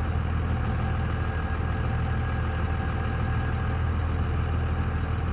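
A vehicle engine idling steadily, an even hum with no change in speed.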